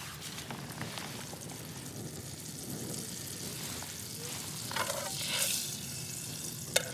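Butter sizzling in a small pan on a Jetboil camp stove, a steady frying hiss that swells briefly about five seconds in. A sharp metal clink near the end.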